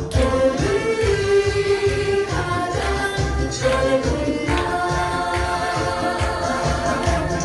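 Korean trot song with a melody line over a steady beat, with janggu hourglass drums struck in time by a drumming troupe.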